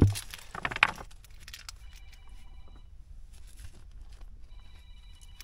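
Rocks and soil being shifted by hand: a sharp knock at the start, scraping and rustling through the first second, then scattered small clicks of stones. A faint phone ringtone sounds in two short spells, about two seconds in and again near the end.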